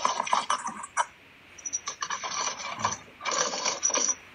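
Rapid clicking and rattling close to the microphone in three short bursts, at the start, near the middle and near the end.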